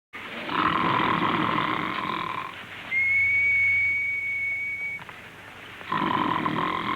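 A man's performed snore: a raspy snore on the breath in, then a steady high whistle on the breath out, with the raspy snore starting again near the end. He is awake and doing it on purpose, rehearsing comic snores.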